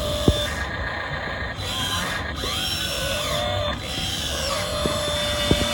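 Electric motors and hydraulic pump of an RC model excavator whining, rising and falling in pitch as the arm and bucket move, with a few sharp clicks.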